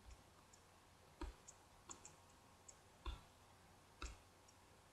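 Computer mouse clicking: four faint, sharp clicks roughly a second apart, with a few lighter ticks between them.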